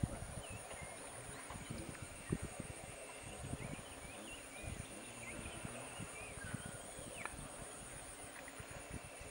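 Sri Lankan elephant feeding while wading through marsh grass: irregular soft thuds and knocks as it pulls up grass with its trunk and moves through the water. A steady high insect drone and scattered bird chirps run underneath.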